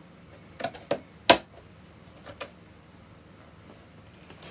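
A few sharp clicks and taps from handling a boxed action figure's packaging, the loudest about a second in, then quiet handling.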